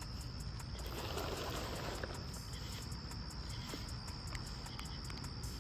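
Crickets trilling steadily in one thin high tone, over a steady low rumble, with a few faint clicks.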